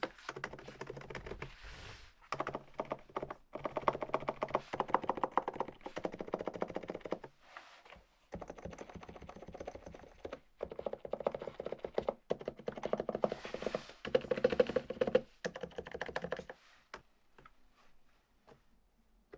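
Typing on the archon E1 PRO contactless-switch gaming keyboard: fast runs of keystrokes in bursts with short pauses. The typing stops near the end, leaving a few last taps.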